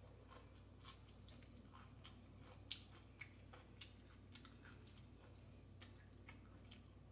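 Faint close-up chewing of a taco salad with tortilla chips, heard as scattered small wet mouth clicks, the sharpest about two and a half seconds in, over a low steady hum.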